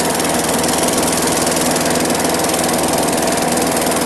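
Modified lawnmower engine running steadily at idle, which its demonstrator presents as running with no exhaust.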